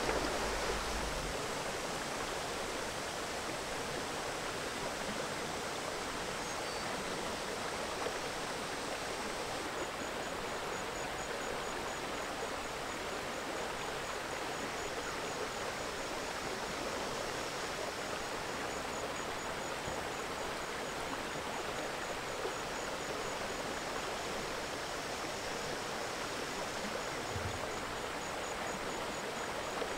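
Steady, even rush of river water flowing. About a third of the way in, a faint, high insect call begins pulsing evenly underneath.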